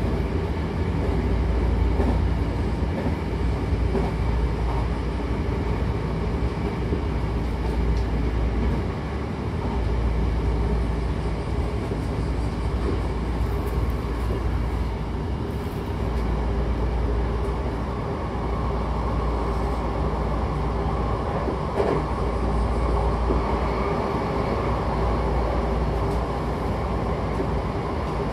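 Hankyu electric commuter train running at speed, heard from inside the passenger car: a steady low rumble of wheels and running gear on the track, with a few faint clicks. A higher hum grows stronger about halfway through.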